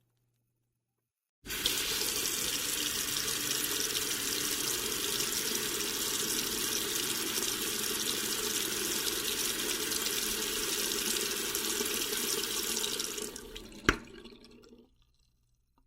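Water running steadily, starting abruptly about a second and a half in and dying away near the end, with a single sharp click as it fades.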